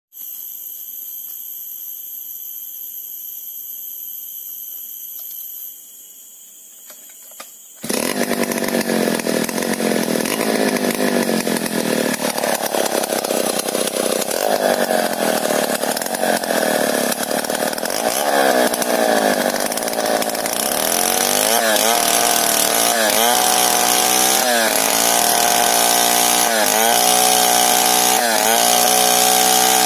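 Steady high-pitched drone of forest insects, then about eight seconds in a STIHL 070 two-stroke chainsaw suddenly starts running loudly. From about twenty seconds on it revs up and down over and over as it rip-cuts a large log lengthwise into planks.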